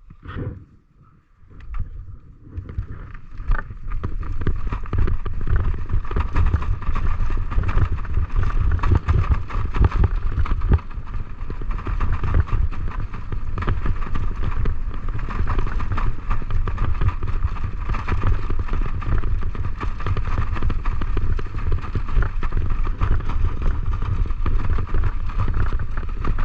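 Steady rumble of a husky-drawn training rig on the move: wheels rolling, wind rushing over the microphone, and the dogs' running paws. It builds up over the first few seconds, then holds steady.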